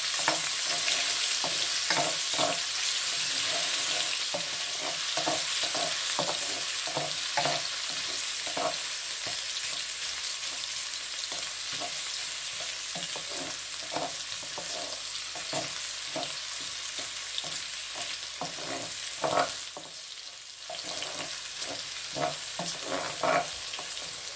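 Garlic-ginger paste sizzling in hot oil in a metal karahi, a steady hiss, while a wooden spatula stirs and scrapes it across the pan bottom in repeated short strokes. Near the end the sizzle drops away for about a second and then comes back.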